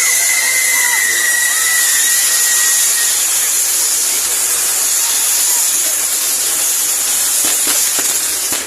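Fireworks burning with a loud, steady hiss. A thin whistling tone slides slowly down in pitch over the first few seconds. The hiss cuts off abruptly near the end.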